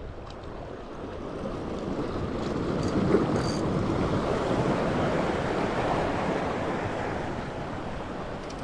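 Sea surf washing over the shoreline rocks, a wave's rush building for a couple of seconds and then subsiding.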